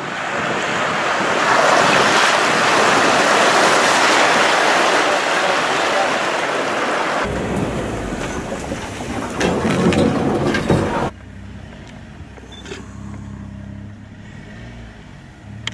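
Open safari vehicle fording a shallow river: a loud rushing splash of water over the engine. About seven seconds in it gives way to the engine running with a few knocks as the vehicle drives on, then drops to a quieter low hum near the end.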